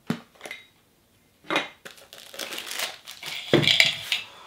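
Plastic shrink wrap being torn off a Funko Soda vinyl-figure can and crumpled by hand. It starts with a few short crackles, then turns into a longer run of crinkling that is loudest near the end.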